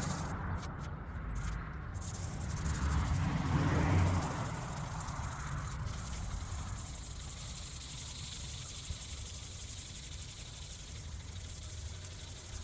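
Hand wet sanding of a painted steel motorcycle gas tank with 800-grit sandpaper: a rubbing hiss of paper on wet clear coat, louder for the first few seconds, then steadier and quieter, as a hard paint line is blended.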